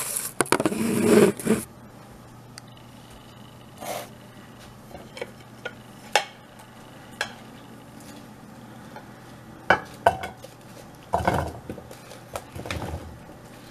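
Sliced, sugar-coated apples being tipped from a glass mixing bowl into a glass baking dish: scattered clinks of a slotted spoon against the bowl and knocks of the fruit landing, busiest near the end. A short burst of rustling and scraping comes at the very start.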